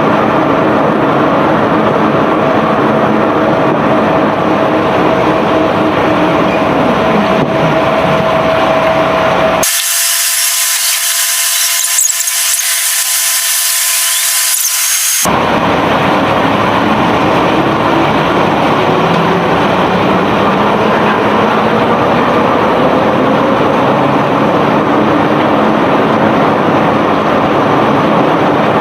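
Self-unloading barge machinery running loud and steady, a dense mechanical din with a held whine and slowly gliding squeals. About ten seconds in it switches abruptly for some five seconds to a harsh, high-pitched hiss with the low rumble gone, then the din returns.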